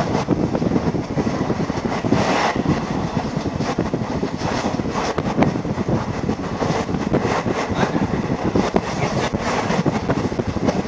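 Passenger train running along the track, heard from a coach window: a steady rumble with frequent rattles and clicks from the wheels and the coach.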